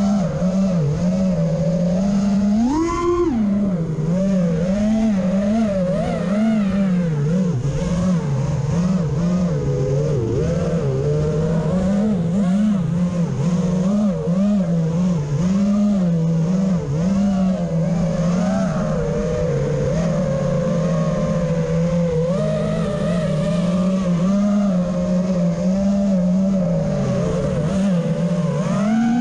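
Electric motors and propellers of an FPV quadcopter whining steadily, the pitch wavering up and down constantly with the throttle, with a sharp rise about three seconds in.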